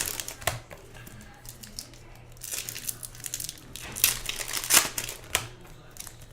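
Plastic and foil wrappers of trading-card packs crinkling and rustling as they are handled, in irregular bursts of crackles.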